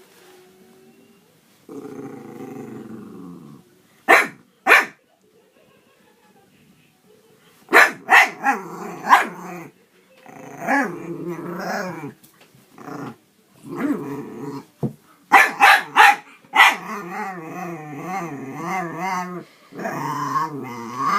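Jack Russell terrier growling in long, warbling grumbles whose pitch wavers up and down, broken by a series of sharp barks.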